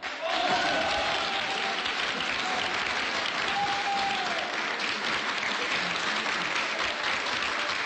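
A large audience applauding with steady, dense clapping that breaks out the moment a yodelled song ends. A couple of voices call out briefly over the clapping.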